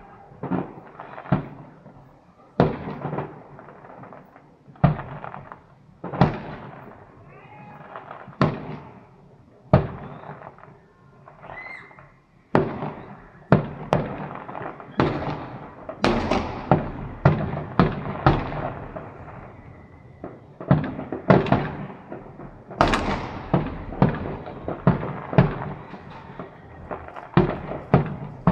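Fireworks display: sharp bangs of bursting fireworks, each trailing off in echo. The bangs come about one every second or two at first, then about halfway through they quicken to a dense run of several a second.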